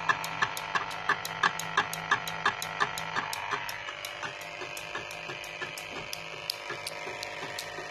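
Homemade magnet wheel and swing-hammer device running, ticking steadily about three times a second. A ringing tone sounds with each tick and fades out about halfway through, while the ticks carry on more softly.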